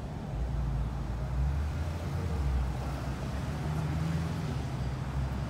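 Road vehicles crossing a railroad grade crossing: a full-size pickup truck drives over the tracks in the first couple of seconds, over a steady low engine hum.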